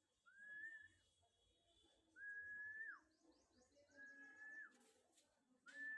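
Faint whistled notes, one clear tone each, repeated four times about every two seconds; each note rises quickly, holds steady, then drops off at the end.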